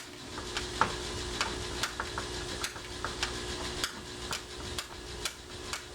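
Irregular small metallic clicks and ticks, about two a second, as the parts of a deadbolt lock are fitted and screwed together by hand.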